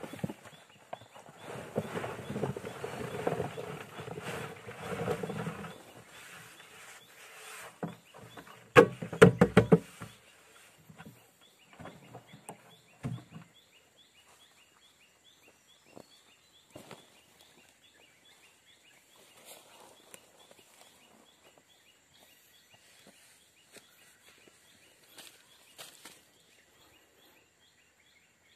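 Ginger rhizomes tipped out of a plastic drum onto a heap, rattling and rustling for the first six seconds. A short run of loud knocks follows around nine seconds in, then only scattered light knocks as the rhizomes are handled.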